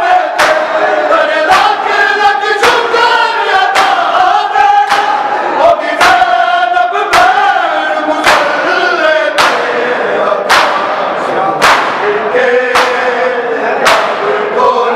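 Shia mourners chanting a Punjabi noha together while beating their chests in unison (matam), the sharp slaps landing about once a second.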